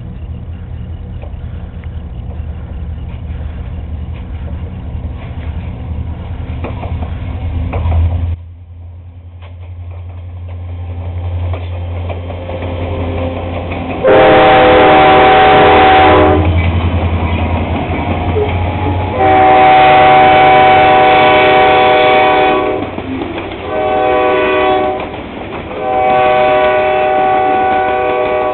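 CSX freight train with three EMD diesel locomotives (SD50-2, SD40-2 and SD50) passing, their engines a steady low drone. About fourteen seconds in the lead unit sounds its air horn in four blasts: long, long, short, long, the standard grade-crossing signal.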